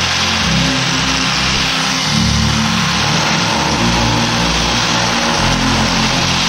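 Electric angle grinder running steadily, its abrasive disc grinding the edge of a PVC board.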